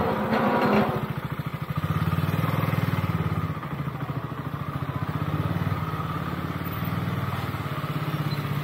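Motorcycle engine running at low speed with an even, rapid pulsing beat, rising a little under light throttle about two seconds in, then settling back.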